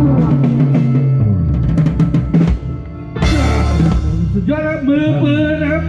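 Live band music with a drum kit: a quick drum fill about two seconds in, a cymbal crash about a second later, then the band plays on with a melody line.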